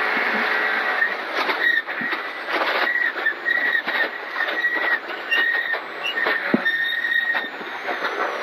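Rally car at speed on a gravel road, heard from inside the cabin: the engine running hard under a steady din of tyre and road noise. From about a second in, loose gravel clatters against the car, and short high whistles recur every second or so.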